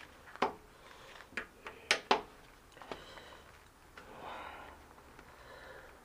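Hand tools on metal parts of a spin bike, a few sharp clicks and knocks in the first two seconds or so, as a slippery circlip is worked at without circlip pliers. A long breath follows around four seconds in.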